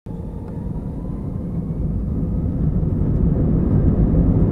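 Airbus A320 cabin noise on the takeoff roll: a steady low rumble of the jet engines and the wheels on the runway, heard from inside the cabin, growing steadily louder as the engines come up to takeoff thrust.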